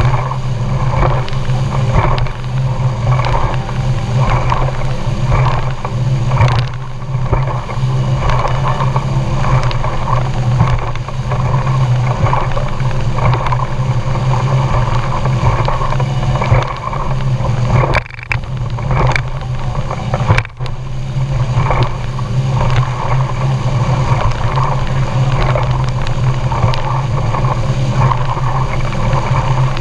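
Motorboat engine running with a steady low drone while the boat is under way, over a constant rush of noise.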